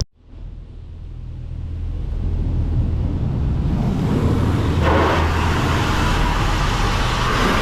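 Ford F150's 3.5-litre EcoBoost V6 running steadily, with a rushing noise building up about halfway through.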